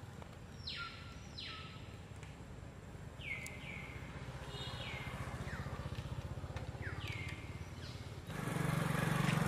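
A bird giving short calls that slide sharply down in pitch, about eight of them at uneven gaps, over a low steady hum. Near the end a motorbike passes close and its engine noise swells suddenly, becoming the loudest sound.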